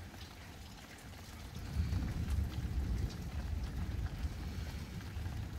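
Steady rain with scattered drop ticks, under a low rumble that swells from about two seconds in.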